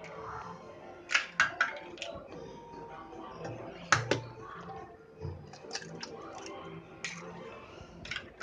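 Raw eggs being cracked against a steel kadai and broken into simmering dal: a few sharp clicks and knocks of eggshell on the pan, a cluster of them about a second in and another about four seconds in.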